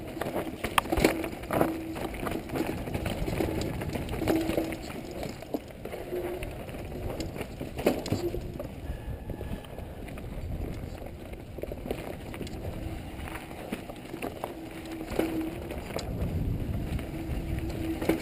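Mountain bike descending a dirt singletrack: tyres rolling on dirt under a continuous rumble, with many sharp knocks and rattles from the bike over roots and rocks. A steady hum comes and goes.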